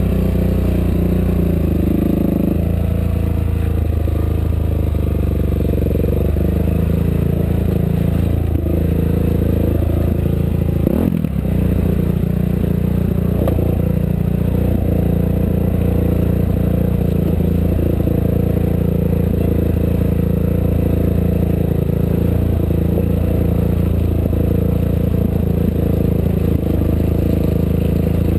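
Off-road race vehicle's engine running steadily under way, with the body rattling and scraping over rough ground. A sharp knock comes about eleven seconds in.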